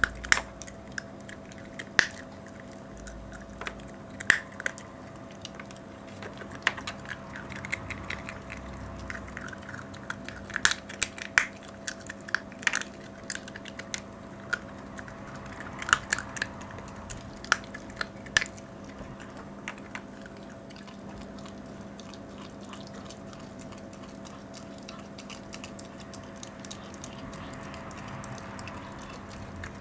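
A Toy Manchester Terrier chewing and crunching raw meaty bones, with irregular sharp cracks of bone between her teeth that come thick for most of the stretch and thin out near the end. A steady hum sits underneath.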